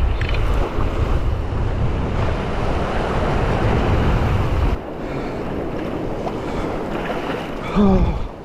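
Surf washing and breaking over shoreline rocks, with wind buffeting the microphone; the heavy low rumble drops away about five seconds in, leaving a quieter wash.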